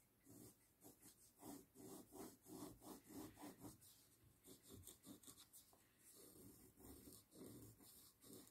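Faint, rhythmic scratchy strokes of a brush rubbing and dabbing on watercolour paper, about two or three a second, laying down a texture for leaves. The strokes ease off midway, then resume more lightly.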